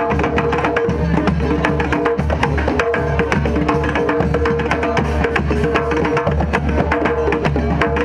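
Percussion-driven music: drums and hand percussion playing a fast, busy rhythm, with a steady held tone running over it.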